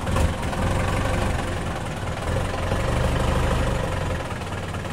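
Jeepney engine idling steadily with a low, even drone.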